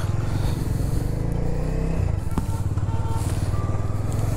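Bajaj Dominar 250's single-cylinder engine running under the rider as the motorcycle pulls away. Its pitch rises for about a second near the middle and then drops back, as in a gear change, followed by a sharp click.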